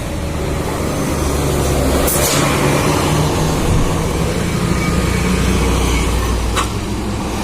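Large bus diesel engine running, a steady deep rumble, with a brief hiss about two seconds in.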